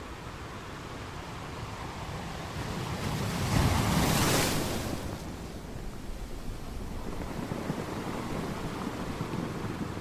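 Sea waves breaking against rocks on a beach: the surf builds, one wave crashes about four seconds in, the loudest moment, and then the water washes back.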